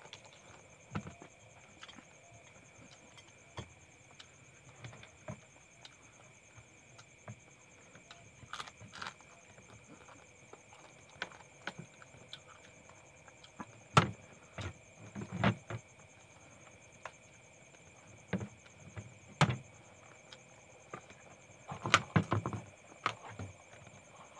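Close-up eating sounds of crab and rice eaten by hand: chewing and lip-smacking with scattered small clicks, and a few louder bursts in the second half.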